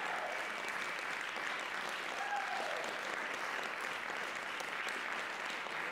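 Audience applauding steadily, a dense patter of many hands clapping, with a voice briefly calling out about two seconds in.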